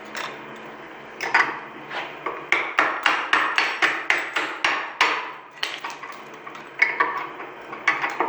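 Hammer striking the shackle of a padlock frozen in ice, knocking it down into the lock to break the ice's grip: a quick run of about a dozen sharp taps starting about a second in, then two more spaced-out strikes near the end.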